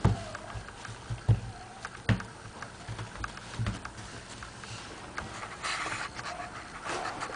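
Pomeranian puppy scrambling and playing on artificial turf: four dull thumps in the first four seconds among light ticks, then two short bursts of hissy noise near the end.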